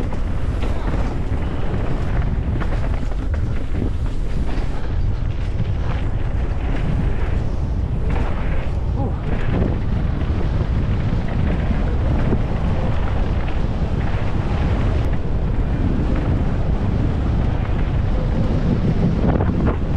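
Wind buffeting the microphone of a camera riding along on a downhill mountain-bike run: a steady loud rumble, with scattered clattering knocks of the bike over rough ground.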